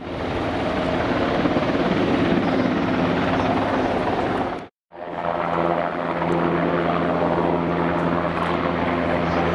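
Coastguard search-and-rescue helicopter hovering low over the sea: a steady, loud drone of rotor and engines with the rush of rotor wash. The sound cuts out for a moment a little under halfway through, then comes back as an even, steady hum.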